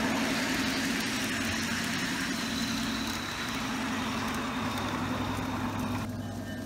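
Wheels of G-scale model freight cars rolling past close by on garden railway track, a steady rolling rumble with a low hum. The sound drops and dulls suddenly about six seconds in.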